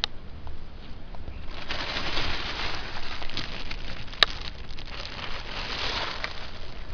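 Plastic bag rustling and crinkling as it is handled, a dense crackly rustle from about a second and a half in until shortly before the end, with one sharp click about four seconds in.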